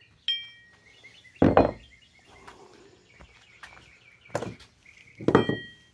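Steel engine-stand mounting arms knocking against metal as they are handled and set in place: four separate knocks, the first and last with a short metallic ring.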